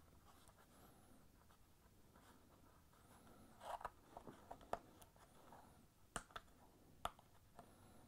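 Faint rubbing and a handful of light clicks from a soaped rubber gasket being pressed and worked into a hole in a plastic washer outer tub by hand, the clicks mostly in the second half.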